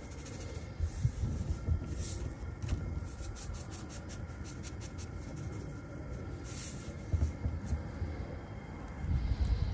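Seasoning shaken from a shaker bottle onto a raw T-bone steak: a run of short dry ticks. Low thuds come in between as hands press and rub the steak down onto the watermelon.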